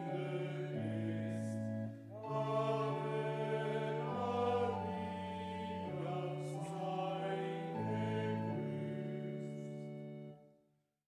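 A choir singing slow, sustained chords that change step by step, with a brief breath pause about two seconds in; the singing fades out near the end.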